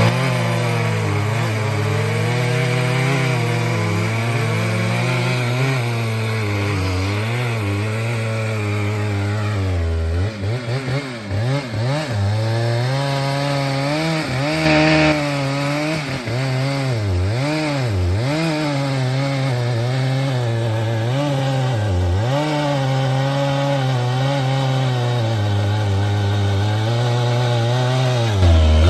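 Chainsaw cutting through a log, its engine note sagging and recovering again and again as the chain bites, with the deepest dips from about a third of the way in to about three quarters through.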